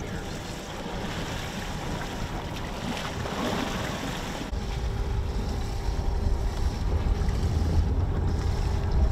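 Wind buffeting the microphone over the wash of ocean waves on a boat offshore; the low wind rumble gets stronger about halfway through.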